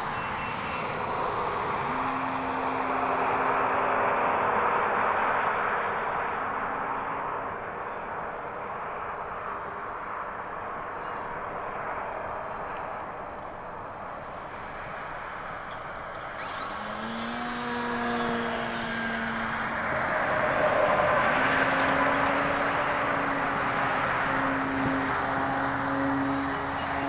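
Electric RC airplane flying overhead, its motor and propeller giving a droning hum that comes and goes and shifts in pitch, over a steady rush of background noise.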